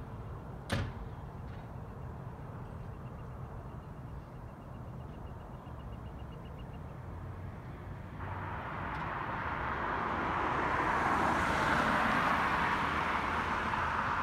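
Diesel switcher locomotive idling with a steady low rumble, a single sharp metallic clank about a second in. About two-thirds of the way through, a loud hiss of escaping air starts abruptly and builds, typical of air being let off as the engine is tied down for the night.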